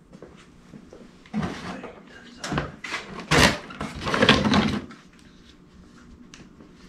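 A cardboard box holding plastic fog-light housings is set down on a concrete floor and handled. It makes a string of knocks and rustles over about three and a half seconds, loudest in the middle.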